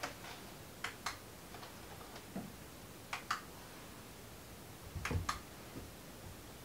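Camera shutter clicking as photos are taken, sharp clicks mostly in pairs a quarter second apart, every couple of seconds, with a soft low thump or two of movement.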